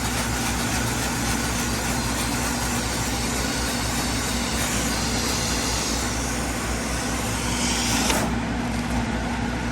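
Small gas engine of a roof-cleaning pump running steadily while it sprays a 3% sodium hypochlorite mix onto the roof; the spray's hiss stops about eight seconds in while the engine keeps running.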